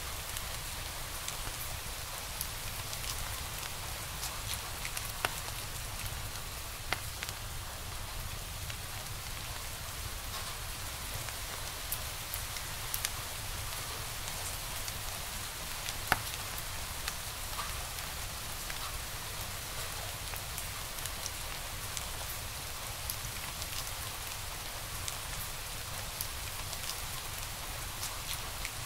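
Wood fire crackling in a fireplace: a steady hiss peppered with scattered small snaps and pops, a few louder ones, the loudest about sixteen seconds in.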